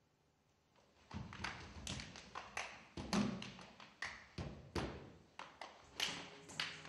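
Live Kathak percussion: a run of sharp, uneven strikes starting about a second in, about three to four a second, with a deep ringing stroke about three seconds in.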